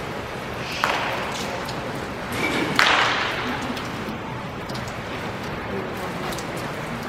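Baseball bats cracking against balls in indoor batting cages: two sharp hits about two seconds apart, each ringing on in the large hall, over a murmur of players' voices.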